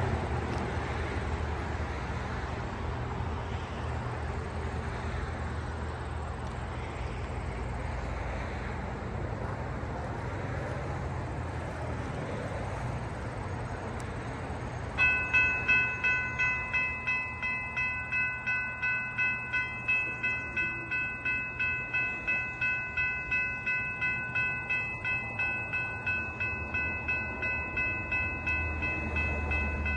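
Railroad crossing warning bell starts ringing about halfway through, a steady ding at roughly two strokes a second as the crossing signals activate for an approaching train. Underneath is a low rumble that grows louder near the end.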